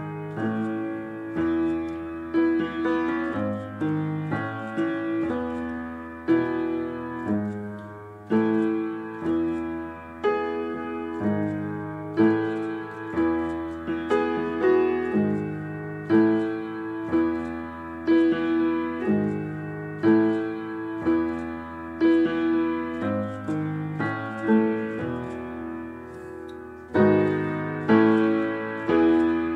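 Background piano music: a steady pattern of struck notes over a bass line that changes about every two seconds.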